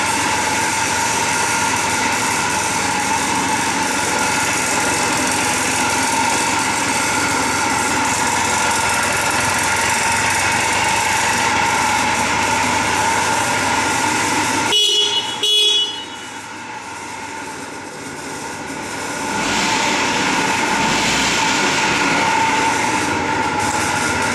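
Honda PAX EVE scooter engine running steadily with a light, high-pitched note. About fifteen seconds in, the horn gives two short beeps. The engine sound then drops away for a few seconds and comes back up.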